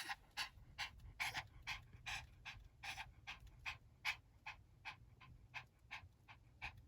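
Cavalier King Charles Spaniel panting rapidly, about four quick breaths a second, in a dog that is ill with suspected kennel cough.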